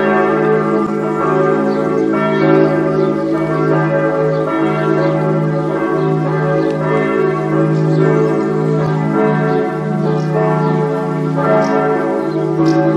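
Several church bells pealing together, their strikes overlapping into one continuous ringing: the bells calling people to the Sunday service.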